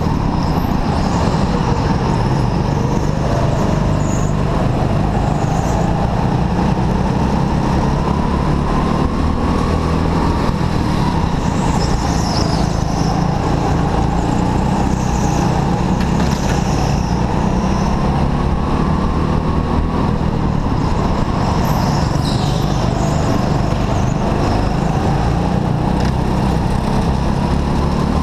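A racing go-kart heard from on board, its motor's pitch rising and falling with speed through the corners over a constant heavy rumble. Brief high squeals come a few times.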